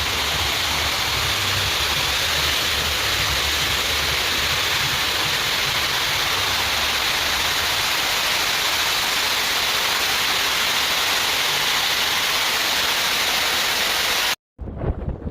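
Steady rushing, hissing water at an even level with no breaks or swells. It cuts off suddenly near the end and gives way to gusty wind buffeting the microphone.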